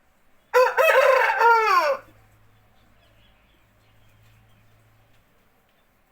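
Aseel rooster crowing once. It is a single loud crow about a second and a half long that drops in pitch as it ends.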